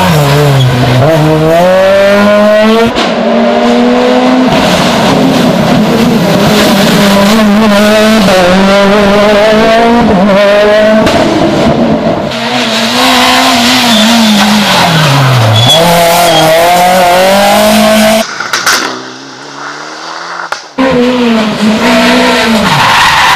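Rally cars at full race pace: engines revving hard and climbing in pitch, dropping sharply at each gear change, braking and downshift, then climbing again. About three-quarters of the way through, the sound drops away for a few seconds before another car comes in loud.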